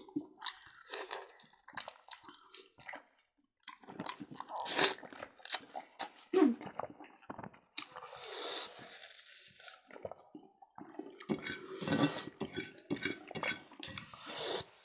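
Close-up chewing and crunching of pork by several people eating with their hands, irregular wet mouth sounds and crunches.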